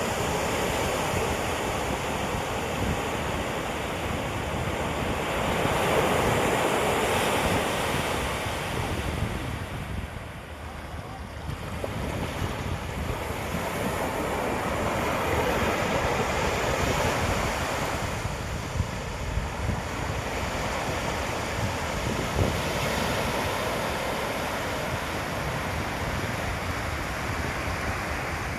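Sea waves washing onto a beach, a continuous surf that swells louder twice with a short lull between, with wind rumbling on the microphone.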